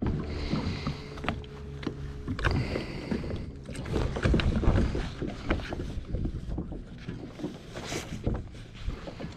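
Water slapping and sloshing against a sailboat's hull and a plastic sit-on-top kayak held alongside, with many irregular small knocks and rubbing as the kayak is hauled in on its line.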